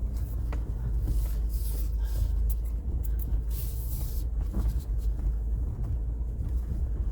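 Vehicle driving slowly over a rough field: a steady low engine and tyre rumble, with brief rattles and hiss now and then.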